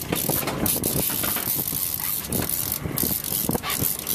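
Fishing reel being cranked while fighting a fish, a rapid irregular mechanical clicking over a low steady rumble.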